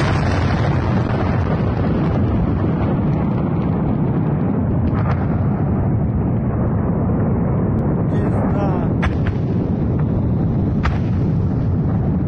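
Loud, steady, low rumbling roar of a huge explosion, with a few faint sharp cracks about five, nine and eleven seconds in.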